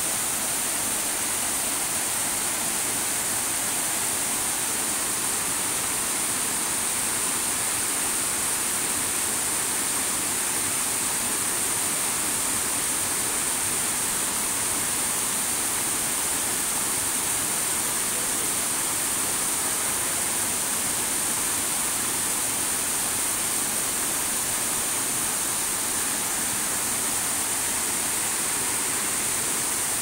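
Water of a wide, low waterfall rushing over rock ledges: a steady, even rush that does not change.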